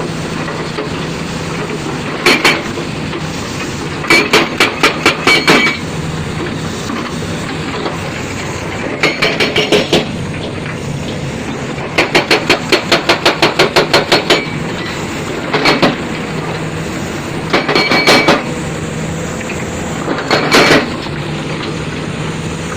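Heavy construction machinery at work: a diesel engine running steadily, broken again and again by short bursts of rapid, evenly spaced metallic hammering, about eight to ten blows a second.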